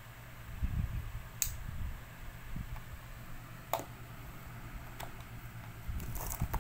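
Handling noise, low thumps and rustle as the phone and the light are moved, with about four sharp clicks spread through.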